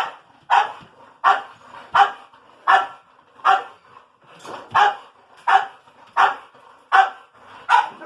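Dog barking in a steady, regular run of about eleven sharp barks, a little under two a second, at a rat it is trying to reach.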